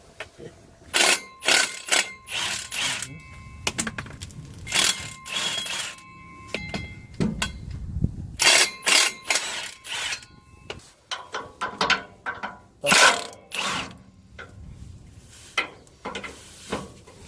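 Hand ratchet wrench clicking in short bursts of strokes, over and over, as bolts are worked loose.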